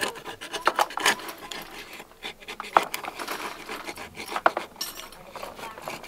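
Knife scraping and prying at an oyster's shell on wet wooden planks to shuck it: irregular scraping with a few sharp clicks, the loudest near three seconds and again at about four and a half seconds.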